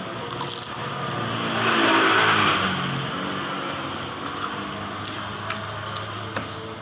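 A motor vehicle passing by. Its engine hum swells to its loudest about two seconds in, dips in pitch as it goes past, then slowly fades.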